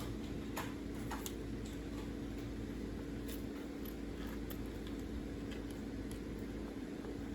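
Small plastic clicks and taps of LEGO bricks being handled and pressed together, coming irregularly, over a steady low hum.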